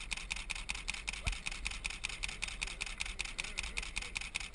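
Fishing reel ratchet clicking rapidly and evenly, about nine clicks a second, as line runs through the reel.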